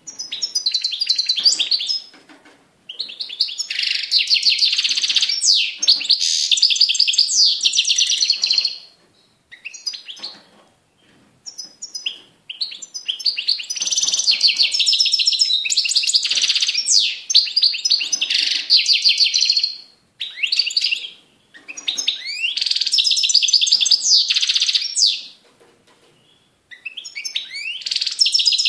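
European goldfinch singing: long phrases of rapid, liquid twittering and trilling notes, several seconds each, broken by short pauses.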